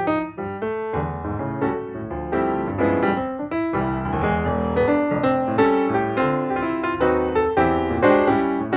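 Piano music: a quick run of notes on the keyboard.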